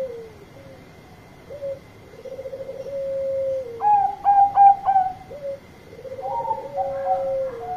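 Bangkok-strain zebra dove (perkutut) singing: twice a rolling, purring coo followed by a quick run of short, higher clear notes.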